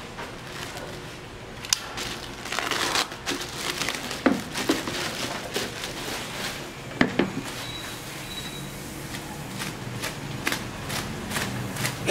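Clear plastic wrapping crinkling and rustling as it is pulled off a boxed electric pressure washer, with a few sharp knocks as the unit is handled.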